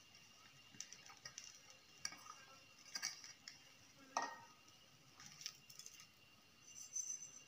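Faint, scattered clinks and taps of steel kitchenware as grated coconut is tipped from a steel bowl into a mixer-grinder jar. The sharpest knock comes about four seconds in as the bowl is set down, then there are light metal clicks as the pan is gripped with tongs.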